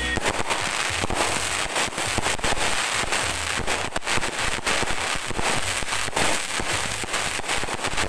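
Aerial fireworks bursting overhead: a dense, continuous run of rapid pops and crackles from glittering crackle stars.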